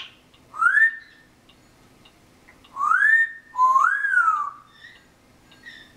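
African grey parrot whistling three times: two upward-sliding whistles, then one that rises and falls, with faint short chirps near the end. A sharp click comes right at the start.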